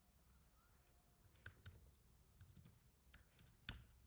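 Faint computer keyboard typing: a handful of scattered key clicks, the loudest near the end.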